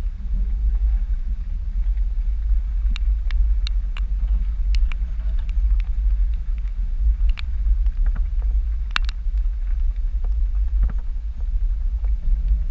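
A Jeep crawling slowly along a muddy off-road trail, picked up by a microphone mounted on the vehicle's outside: a steady low rumble from the vehicle with scattered sharp ticks.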